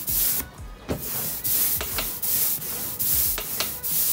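Printmaking ink roller rolled back and forth over a thinly inked slab, a repeated hiss with each stroke, about two strokes a second. The quiet hiss is the sign of a thin ink layer: less ink on the slab.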